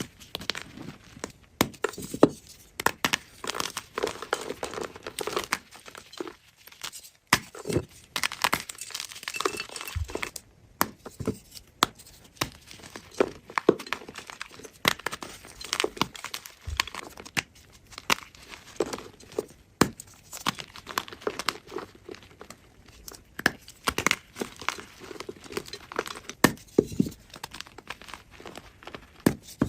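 Blocks of gym chalk being crushed at close range: dense, irregular crunching and crumbling crackles, with a couple of short pauses.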